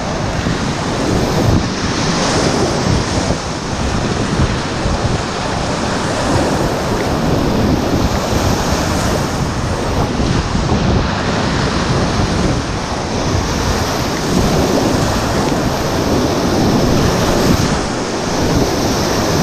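Flood-high whitewater river rushing loudly and steadily around a kayak, with wind buffeting the microphone.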